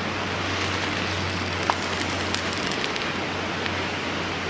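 Steady rush of a fast-flowing river, with a few sharp crackles and clicks over it from the wood fire and the hot sandwich maker being handled and opened.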